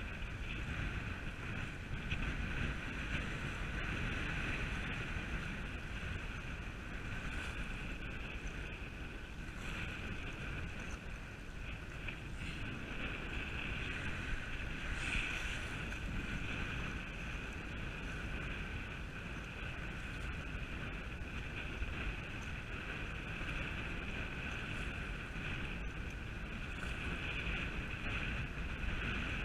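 Steady wind buffeting the microphone, with sea water washing against the jetty rocks below. A steady high-pitched hum runs underneath.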